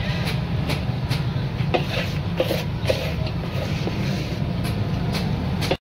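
Steady low rumble of background machinery or traffic, with light clicks about three times a second; it cuts off abruptly just before the end.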